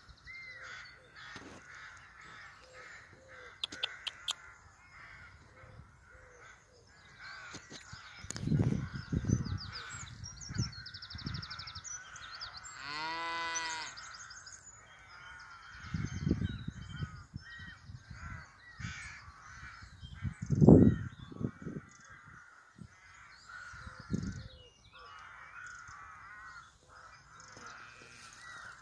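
Birds cawing repeatedly throughout, with several loud low rumbles close to the microphone, the loudest about two-thirds of the way in, and one drawn-out call that bends in pitch about halfway through.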